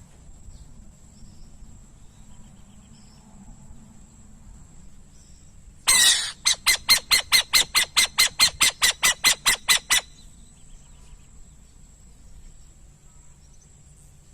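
Burrowing owl giving a rapid series of harsh, chattering notes, about four or five a second, starting about six seconds in and stopping abruptly about four seconds later.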